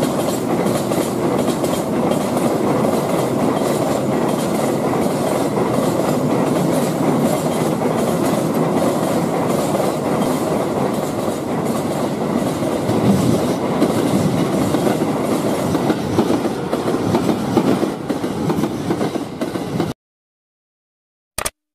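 Sound effect of a passing train: a steady rumble of steel wheels on rails with a faint regular clatter, cutting off suddenly about twenty seconds in. A single short click follows near the end.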